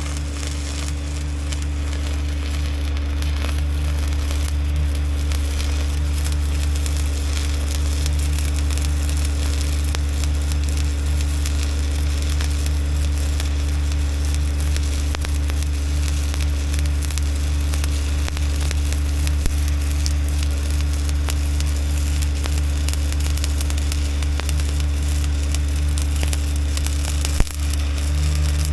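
Welding arc crackling and sizzling steadily while a tear in a steel skid steer bucket is welded up, over the steady low hum of the engine-driven Bobcat Air Pak 200D welder running.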